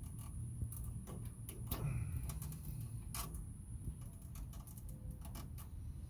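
Irregular light clicks and ticks, a few to several a second, over a low steady rumble.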